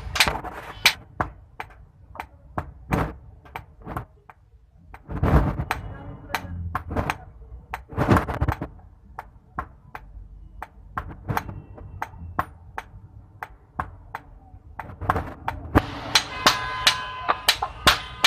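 Hammer blows on hot iron at the anvil, forging a knife blade: sharp metallic strikes, spaced out at first, then a quick steady run of about three a second near the end, where each blow rings.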